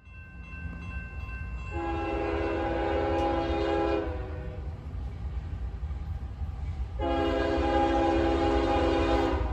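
Multi-chime air horn of a CSX freight train's lead locomotive, a GE ES40DC, sounding two long blasts of about two and a half seconds each, a few seconds apart, over a steady low rumble.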